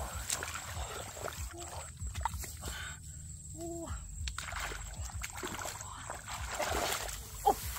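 Shallow muddy water splashing and sloshing as hands grope through it for fish. A few short pitched calls sound at intervals over it.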